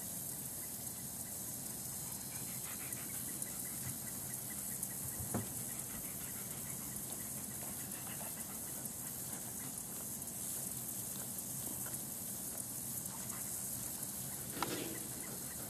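German shepherd dogs panting, over a steady high hiss.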